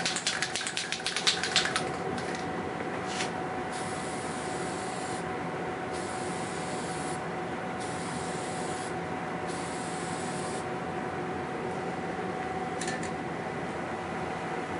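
Aerosol can of Slip Plate graphite coating: the mixing ball rattles rapidly as the can is shaken for about two seconds. Then come about four hissing spray bursts of a second or so each, starting and stopping sharply, over a steady background hum.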